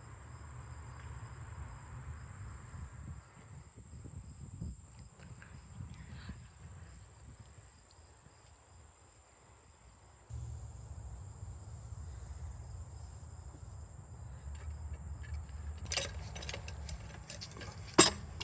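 Outdoor ambience: low wind rumble under a steady high insect drone, with a few clicks and one sharp knock near the end as pipe fittings are handled.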